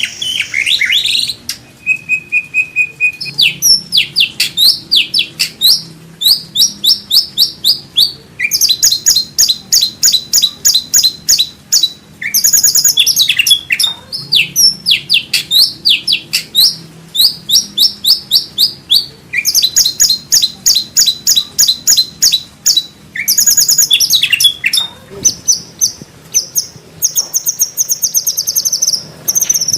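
White-rumped shama singing rapid-fire phrases: fast runs of repeated falling whistles and very high, buzzy trills. The phrases come in quick bursts separated by brief pauses.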